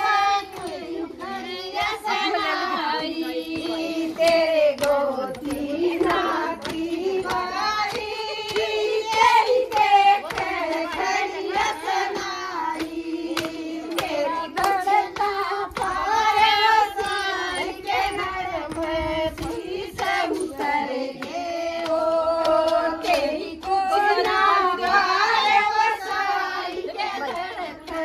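A group of women singing a Haryanvi folk song together, with hand claps keeping the beat.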